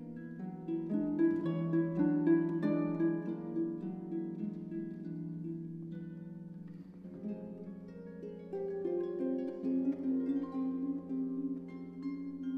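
Concert pedal harp played solo: a flow of plucked notes ringing over a sustained low note, busiest in the first few seconds, thinning out in the middle and building again in the second half.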